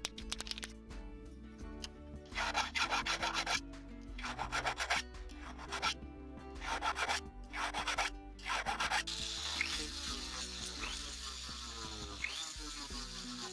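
A flat hand file rasping across a 9ct gold signet ring in separate strokes and short runs of strokes. From about nine seconds in, a small rotary tool runs steadily against the inside of the band, with a high hiss and faint repeated chirps.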